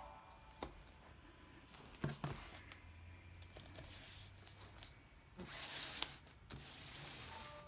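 Large hardcover books handled on a wooden tabletop: a few light knocks as they are lifted and set down, then about a second of brushing, sliding noise near the end.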